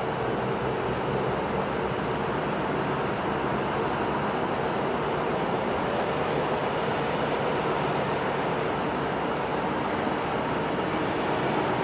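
Two Siemens Charger diesel locomotives idling while their train stands stopped: a steady, even engine noise that does not change.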